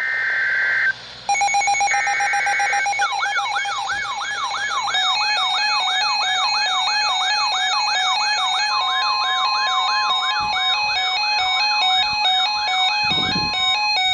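Emergency Alert System activation: two short bursts of warbling SAME header data tones, then overlapping alert tones, a fast repeating whooping sweep several times a second over stepped beeping tones, announcing a severe thunderstorm warning.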